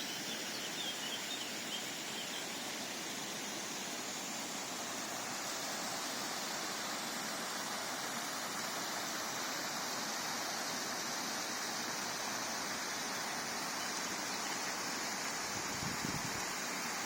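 Steady rushing of a karst stream's water falling over its cascades.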